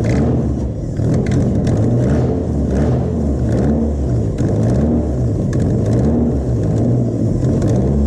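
Mazda MX5 four-cylinder engine running on brake cleaner sprayed into it, its speed rising and falling again and again as it revs and surges. It runs this way because it is not getting fuel.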